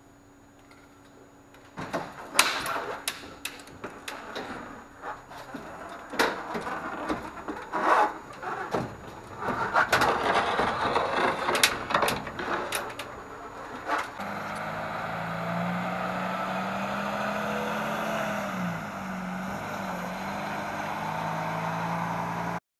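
A run of sharp knocks, clanks and scrapes. Then a semi-truck's diesel engine runs steadily for several seconds, its pitch dipping briefly near the end, before the sound cuts off suddenly.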